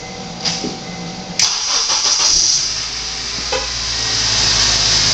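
Car engine cranked by the starter about a second and a half in, catching and settling into a steady idle, started on a dead battery boosted by a battery charger's 80-amp engine-start setting.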